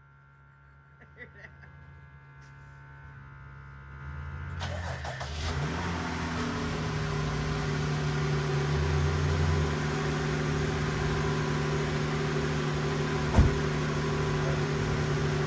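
A 2021 Jeep Gladiator's engine starting about four seconds in, briefly rising in pitch and then idling steadily, with a single sharp knock near the end.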